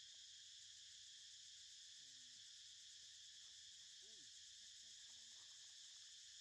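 Faint, steady insect chorus, a high even drone, with a couple of faint short calls in the middle.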